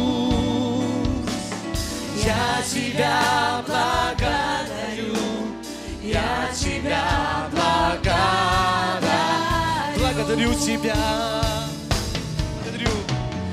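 Live Christian worship music: singers carrying a slow melody over a band with steady bass notes.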